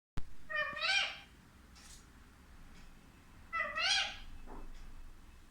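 Pet parakeet giving two drawn-out, meow-like calls about three seconds apart, each rising and then falling in pitch.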